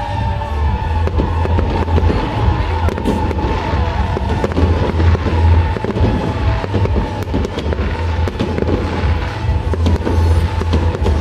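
Fireworks going off in rapid succession, a dense run of sharp cracks and crackles, over loud music with a heavy pulsing bass.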